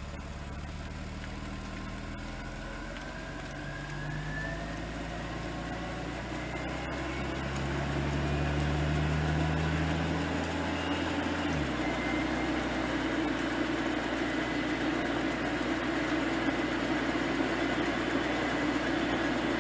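1989 Volvo 240 driving slowly, its engine running with a high whine that rises in pitch as the car gathers speed. About halfway through, the engine note drops abruptly, and the car carries on at a steady, rougher hum with the whine still audible.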